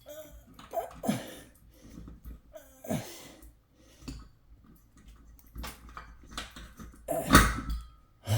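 A man strains and breathes hard while working a ceiling fan onto its ceiling mounting bracket, with scattered knocks and scrapes of the fan's metal parts. About seven seconds in comes a louder clank with a short ring, as the fan goes onto the bracket.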